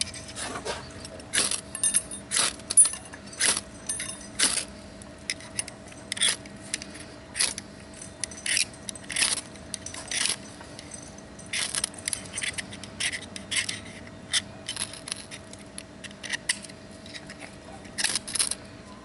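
Short metallic scrapes and clicks from metal hand tools being worked, irregular, roughly one a second, the loudest nearly three seconds in, over a faint steady hum.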